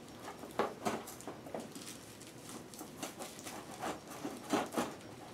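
Irregular rustling and scraping as a metal ceiling light fixture base is pushed up against the ceiling and twisted onto its mounting screws, with the insulation inside crinkling. The sharpest scrapes come about half a second to a second in and again around four and a half seconds in.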